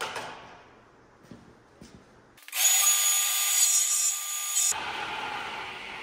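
Portable table saw ripping a strip of plywood: a loud cutting noise starts suddenly about two and a half seconds in and lasts about two seconds, then drops to a quieter noise that slowly fades.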